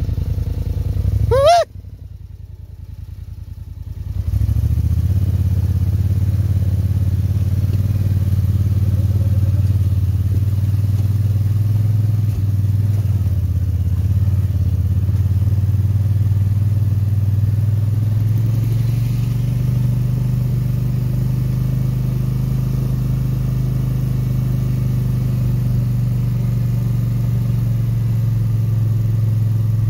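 Dirt bike engine: a sharp rev about a second and a half in, a brief quieter dip, then a steady low drone from about four seconds on as the bike rides along a gravel mountain track.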